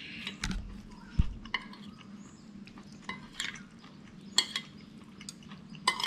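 Metal spoon and fork clinking and scraping against a plate while eating noodles, a handful of separate clinks spread through, with a dull knock about a second in as the loudest sound. A faint low steady hum runs underneath.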